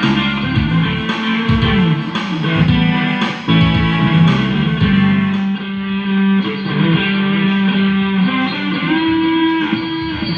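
A live band playing through a sound check, led by electric guitar with a bass line sliding underneath.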